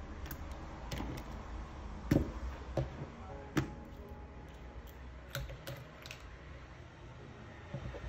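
Pens, markers and pencils picked up from a desk: scattered light clicks and clacks of plastic against the tabletop, with a few louder knocks between about two and four seconds in.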